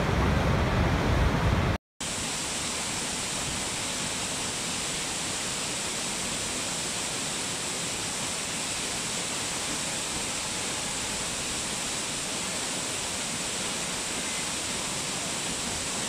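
Waterfall rushing: a steady, even hiss of falling water. For the first couple of seconds it is a louder, deeper rush from a larger falls, which cuts off with a moment of silence about two seconds in before the steadier hiss takes over.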